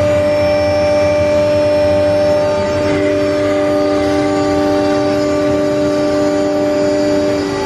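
CNC router running with its 2.2 kW water-cooled high-frequency spindle and dust extraction going together: a steady machine noise carrying several whining tones, some of which shift in pitch about three seconds in. The dust extraction is the loudest part of the noise.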